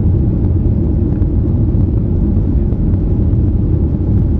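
Steady low rumble of a Boeing 737-800 cabin in flight, the CFM56 jet engines and rushing air heard from inside the cabin while the aircraft climbs out after takeoff.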